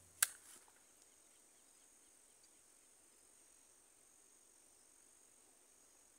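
Faint, steady, high-pitched insect chirring, with one sharp click about a quarter of a second in.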